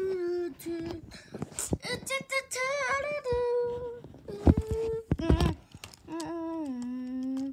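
A young child humming and singing a wordless tune, holding notes that slide up and down and ending on a long note that drops in pitch. Two loud knocks come about halfway through.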